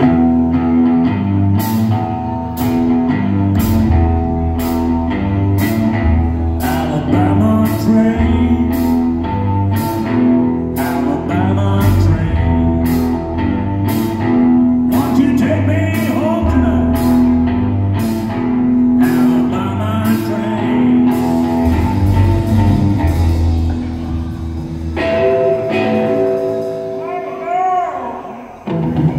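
Live rockabilly trio playing: electric guitar, upright double bass and drum kit with a steady beat of about two drum hits a second. Near the end the drums drop out and held guitar chords ring, then the full band comes back in.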